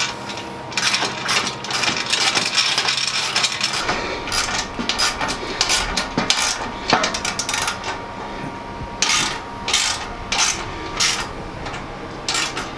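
Metal clicking and clinking of bolts, nuts and hand tools against a steel truck bed rack frame during assembly. The clicks come in quick runs, then as a handful of separate, louder clicks about two-thirds of the way through.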